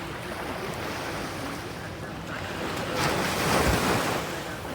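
Sea waves breaking on the shore: a steady wash of surf, with a louder wave crashing about three seconds in.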